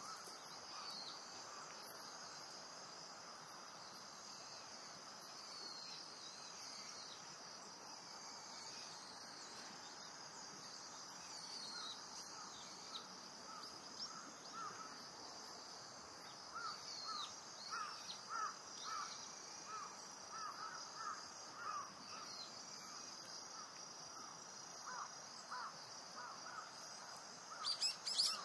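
Steady high-pitched insect chorus, like crickets, throughout. From about halfway through, a run of short repeated bird calls joins it, and a burst of sharper high bird chirps comes near the end.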